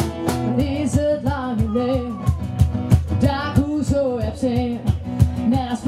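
A band playing a pop song: a singer's voice over a steady drum beat and guitar.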